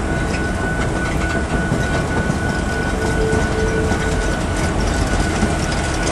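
Bilevel Superliner passenger cars rolling past at close range: a steady rumble and clatter of wheels on the rails, with a thin steady high ring over it.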